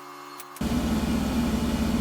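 A faint steady electrical hum, then about half a second in a loud motor-driven machine cuts in abruptly and runs steadily with an even low throb.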